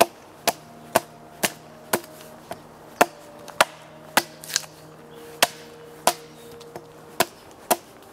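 Short, sharp chopping blows into a wooden log, evenly paced at about two a second, some leaving a brief ringing tone.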